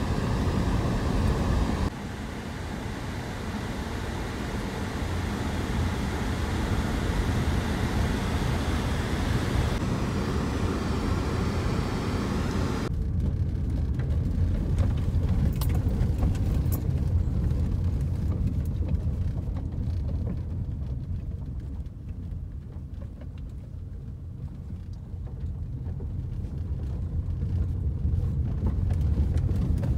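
A car driving, heard from inside the cabin: a steady rumble of engine and tyres. A hiss over the first part drops away abruptly about a third of the way in. After that comes a deeper rumble with scattered ticks on the gravel road.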